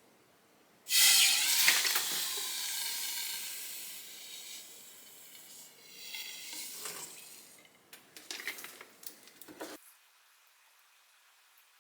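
Hot copper pipe joint sizzling during soldering: a sudden loud hiss about a second in that dies away over a few seconds, then a second, shorter sizzle. A few light clicks and taps follow near the end.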